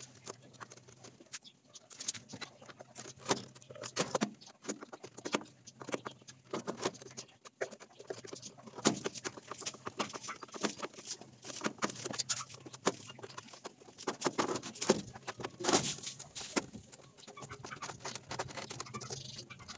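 Hand screwdriver driving screws into a plywood speaker baffle and plastic cabinet: a continuous run of irregular clicks and taps.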